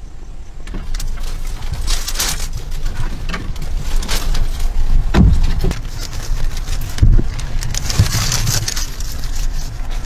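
Rustling and scattered light knocks and clicks of thin bamboo sticks being handled and laid on bare earth, over a steady low rumble.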